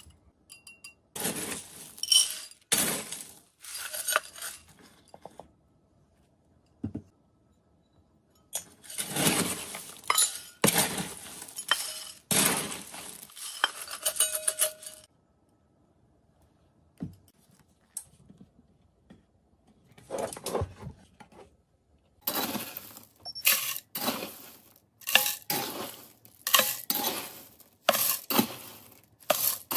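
Dry rodent food mix of pellets, grains and dried chips scooped with a metal scoop and poured into a ceramic bowl and a plastic bucket, rattling and clinking in repeated pours with short pauses between. Near the end the pours come faster and closer together.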